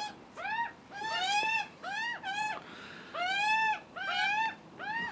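Juvenile Australian magpies giving their begging screams for food: a rapid run of short, harsh calls, about two a second, each rising and then falling in pitch.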